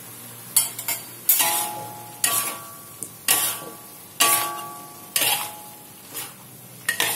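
Metal spatula scraping and knocking against a steel wok while stir-frying minced chicken, about once a second. Each stroke leaves a brief metallic ring.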